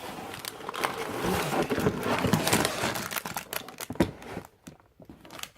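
Plastic Lego parts bag crinkling as it is handled, dense for the first few seconds, then thinning to a few scattered clicks and rustles near the end.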